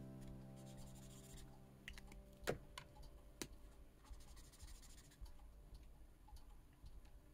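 Faint marker strokes scratching on paper, with scattered light clicks.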